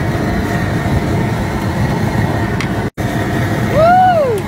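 Steady loud roar of a crawfish boil: the pot at a rolling boil over its outdoor propane burner. It cuts out for a moment about three seconds in, and near the end a brief voice-like 'ooh' rises and falls in pitch.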